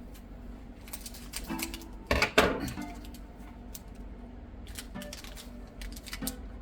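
Foil trading-card booster pack being opened and handled: crinkling with sharp crackles, loudest about two seconds in.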